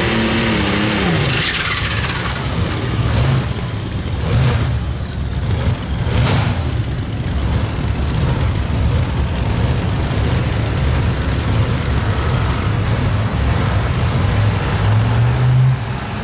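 Super stock pulling tractor's turbocharged engine at full throttle pulling the sled down the track. Its note drops in the first second or two as it loads up, then runs loud and steady.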